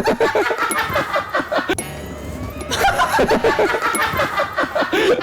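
Several people laughing in two stretches, with a pause of about a second between them.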